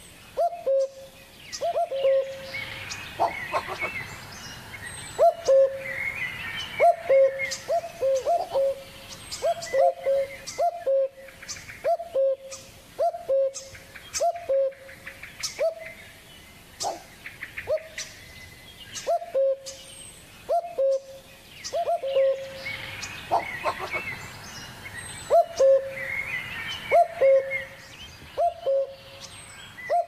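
Birds calling: a short, low hooting note that drops in pitch, repeated about once a second, over bursts of higher twittering chirps.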